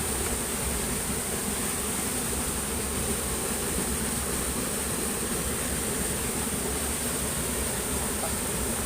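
Steady chorus of insects, a constant high-pitched buzz, over an unbroken low rushing noise.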